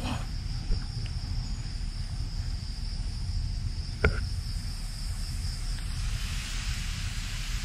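Steady high-pitched chorus of night insects, with a low rumble underneath and a single click about four seconds in.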